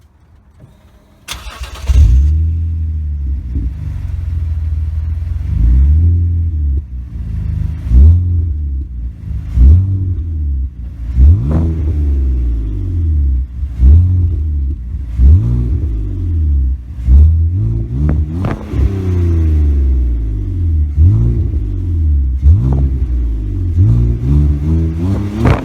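BMW Z4 E85 3.0's straight-six, breathing through a Bastuck stainless-steel aftermarket exhaust from the catalytic converter back, starts about a second in, then idles and is blipped about ten times in short revs. The exhaust is nearly run in, about 90% burnt in by the owner's estimate.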